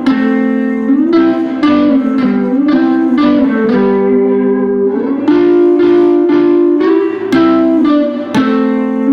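Solo guitar playing plucked chords in a steady rhythm, with one chord left to ring about four seconds in.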